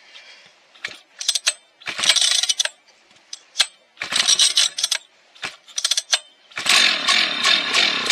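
Rebuilt Husqvarna 1100 two-stroke chainsaw being pull-started: a run of sharp starter-cord pulls, the last and longest near the end, without the engine catching. The owner puts the failure to start down to the fuel line still filling after refuelling.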